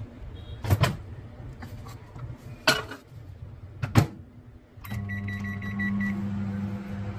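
A few sharp knocks and clicks as a microwave oven's door is handled and its control buttons pressed, then about five seconds in the microwave starts running with a steady low hum.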